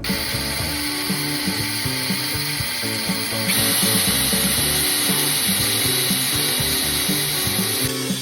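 A power tool running with a steady hiss that grows louder about three and a half seconds in and cuts off near the end, over background music with a steady beat.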